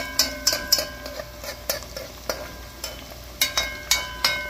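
A metal spoon stirring and knocking against a small metal pot of potato, onion and garlic frying in oil. The strokes come in uneven clusters, mostly in the first second and again near the end, each ringing briefly, over a faint steady sizzle of the oil.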